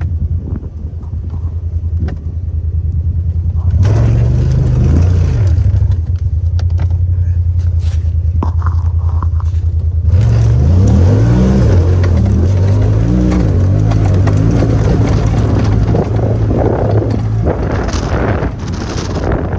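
Honda Talon 1000X-4 side-by-side's parallel-twin engine running while under way, its pitch rising and falling with the throttle about four seconds in and again from about ten to thirteen seconds. Two short rushes of noise come near the end.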